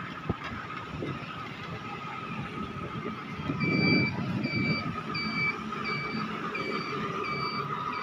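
Street traffic with motorcycle engines running, one swelling louder about halfway through, over a steady faint whine. From about halfway an electronic beeper sounds over and over, about one and a half beeps a second, typical of a vehicle's reversing alarm.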